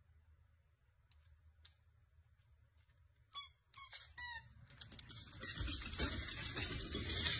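A husky-type dog gives three short, high-pitched yips about three and a half seconds in, followed by a louder, noisy rush of sound as it runs off.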